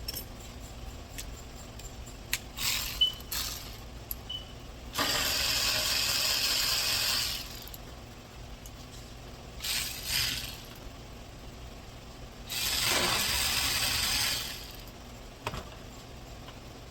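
Metal clicks and clinks of tools and parts during radiator fan removal, with two hissing bursts of about two seconds each, about five and twelve and a half seconds in.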